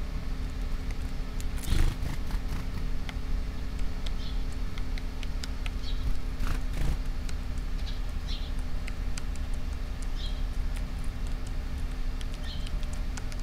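Eurasian tree sparrows at a seed tray: a short high chirp every couple of seconds, faint light clicks as they peck, and two brief rustles about two seconds in and near seven seconds, over a steady low rumble.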